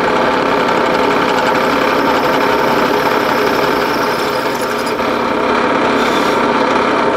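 Machine-driven 5/16-inch twist drill running and cutting through a steam engine cylinder casting, a steady loud motor-and-cutting noise. It turns rough toward the end as the bit breaks through the irregular underside of the casting, which knocks the bit around.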